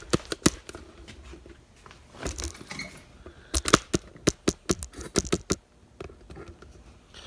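Small metal tools and parts being handled on a workbench: sharp clicks and clinks in several bunches, with a quick run of taps in the middle.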